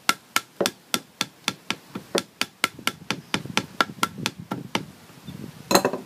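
Hammer tapping hand stitching flat on a leather saddle billet, about four quick strikes a second that stop a little past halfway, followed by one louder knock near the end.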